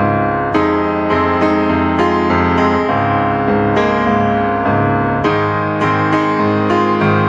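Background music: piano-led instrumental with notes struck about twice a second.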